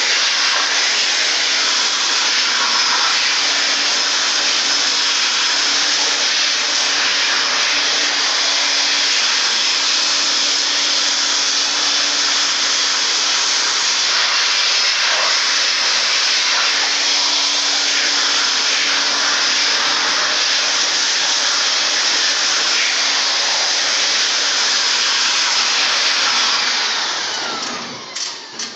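Handheld electric air blower running, a loud steady rushing hiss, blowing dust out of a split air conditioner's indoor blower wheel. Near the end it is let off and the sound drops away, then starts again.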